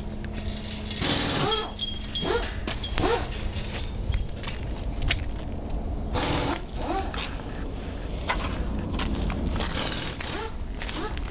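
Short rising animal calls in clusters, a few at a time, over a steady low rumble of wind and handling noise on the microphone.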